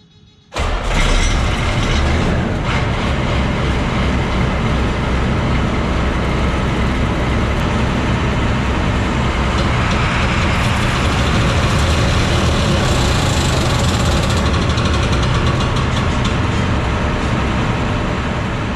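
New Holland TR86 combine running with its separator engaged: a loud, steady mechanical din that starts abruptly about half a second in, brighter and hissier for a few seconds in the middle.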